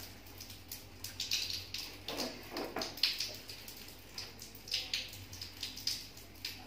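Water running from a wall tap and splashing on a tiled floor, an uneven hiss broken by light knocks as a plastic stool is climbed onto.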